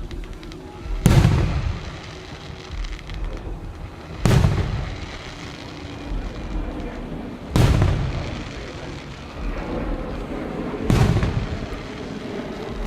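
Fireworks shells bursting overhead: four loud booms about three seconds apart, each trailing off in a rumbling echo.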